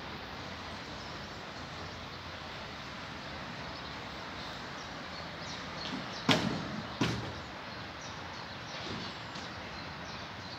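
Steady outdoor background noise, broken about six seconds in by two loud bangs under a second apart, followed by a few fainter knocks.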